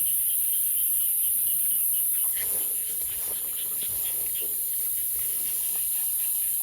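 Night insects, crickets among them, keeping up a steady high-pitched chorus, with a faint chirping repeated several times a second underneath.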